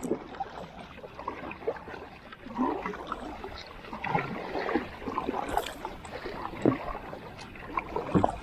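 Water splashing and gurgling against a kayak, with irregular knocks and clunks on the hull.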